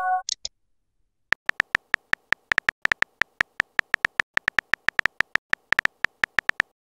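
Simulated phone-keyboard typing clicks: a fast string of short, crisp ticks, one per letter, starting about a second in. It opens with the tail of a short electronic chime as a sent message pops up.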